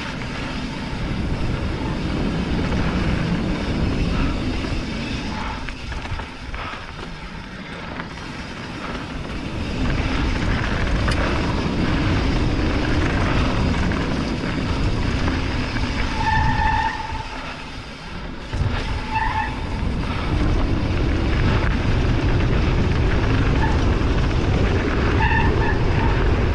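Wind rushing over the camera microphone and mountain-bike tyres rolling over a dirt trail during a descent, the rumble rising and falling with speed. Three short, high squeaks come in the second half.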